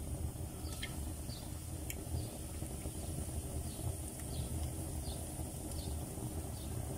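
Batter-coated pieces of tongue frying in hot oil in a pan over a wood fire: faint sizzling with a few scattered crackles, over a steady low rumble.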